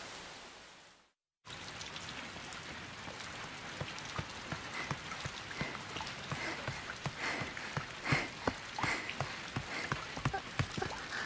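Steady rain with many separate drops falling close by, thicker through the middle of the stretch. About a second in, the rain fades out to a brief dead silence, then comes straight back.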